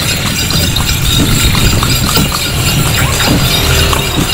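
Horse's hooves clip-clopping on the road as it pulls a passenger cart, with a steady low rumble of the rolling cart underneath.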